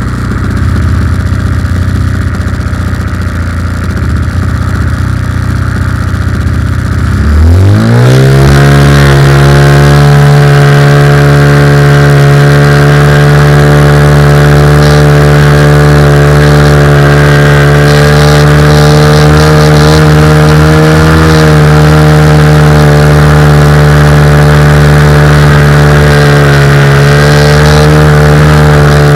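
Wind buffeting the microphone. About seven seconds in, the Cougar 2000 RC helicopter's motor and rotor spool up, rising quickly in pitch, then run at a steady high speed with the wind still rumbling underneath.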